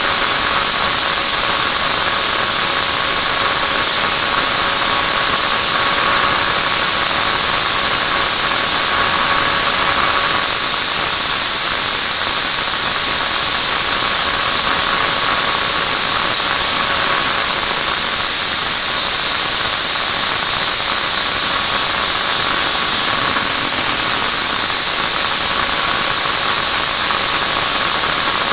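Electric angle grinder running continuously with a high-pitched whine while a steel sewing-machine ring is held against it. A second, slightly lower whine joins about ten seconds in.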